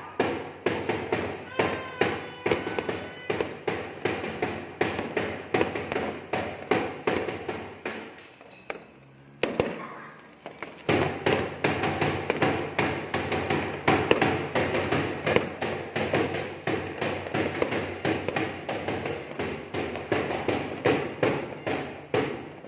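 Fireworks going off in rapid succession, a dense run of bangs and crackles several a second. They ease off briefly about nine seconds in, then pick up again.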